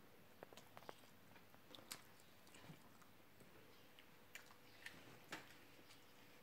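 Near silence: room tone with a few faint, scattered clicks and ticks.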